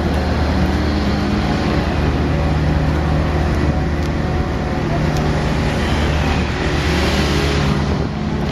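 Engine of heavy construction machinery running steadily and loudly, with a low hum. Near the end a higher hissing noise swells briefly.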